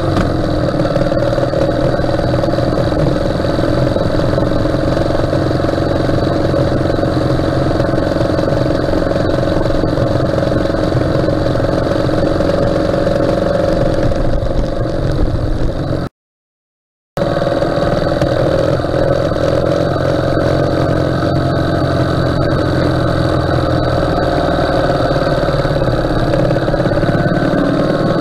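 Ural sidecar motorcycle's flat-twin engine running steadily at road speed, its pitch rising a little near the end. The sound cuts out completely for about a second just past halfway.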